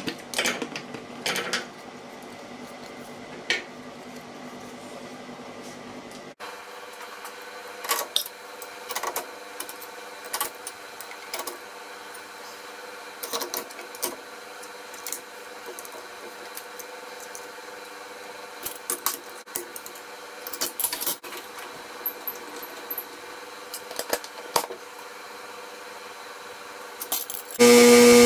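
Scattered metal clinks and clicks as the parts of a stacked dado set (blades, chippers, washers) are handled and fitted onto the arbor of a Jet JWTS-10 table saw, with wooden knocks as the walnut insert is set into the steel table. Near the end the saw's motor comes on abruptly with a loud steady hum.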